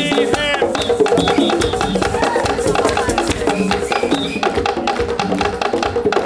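Live African-style hand drumming on tall drums: a fast, steady beat of sharp strikes, with short pitched notes woven through it.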